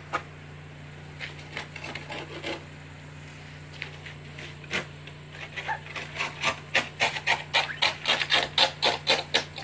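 Ice scraper scraping ice off a car's rear window. A few scattered strokes come first, then a fast run of about three to four strokes a second in the second half.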